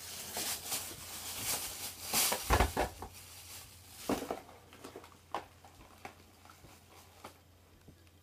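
A thin plastic bag rustling and crinkling as it is handled, densest and loudest in the first four seconds, then thinning to scattered small rustles and knocks.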